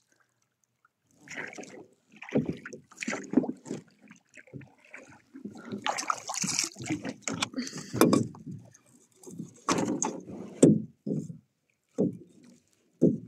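Irregular knocks, creaks and splashes of an inflatable fishing boat being rowed, oars working in their oarlocks and dipping in the water. The sounds come in short uneven strokes after about a second of quiet.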